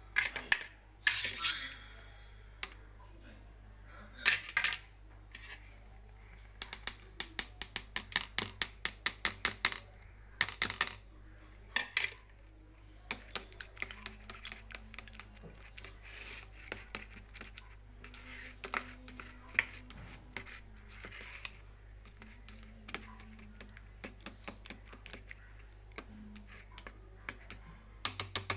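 Metal spoon beating eggs for a Spanish omelette in a plastic tub: quick clicking and tapping against the tub's sides, in runs of about five or six strokes a second.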